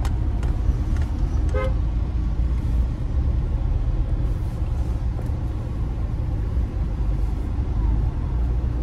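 Toyota Fortuner moving slowly at low speed, a steady low rumble of engine and road noise, with a brief horn-like toot about one and a half seconds in.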